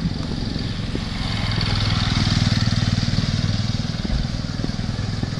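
A vehicle engine running with a fast, even pulsing beat. It grows louder about two seconds in and then eases off, like a vehicle passing close by.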